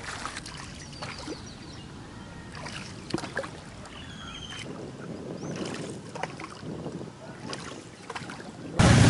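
Floodwater sloshing and splashing, with scattered knocks and a few faint high chirps. Near the end a much louder, steady rushing noise cuts in suddenly.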